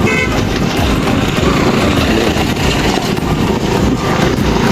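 Steady rumble of a vehicle on the move, with a short horn toot right at the start.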